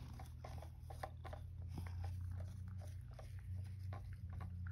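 A cat chewing and crunching carrot topped with dried bonito flakes: a run of small, irregular clicks over a steady low hum.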